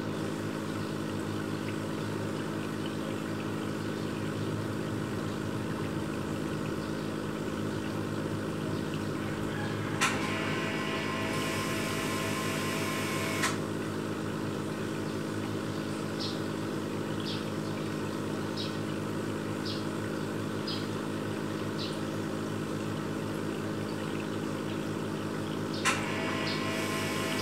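Steady electric hum of an aquarium pump. About ten seconds in a sharp click starts a higher whine that stops with another click a few seconds later; a similar click and whine come near the end.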